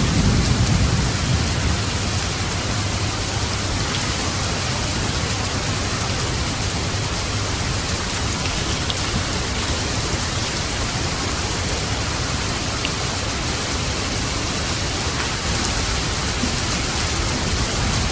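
Steady heavy rain, an even hiss, with a low rumble in the first second or so.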